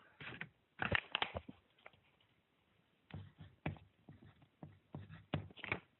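Colored pencil writing on paper: short scratchy strokes in a few clusters, about a second in, again around three to four seconds in, and near the end.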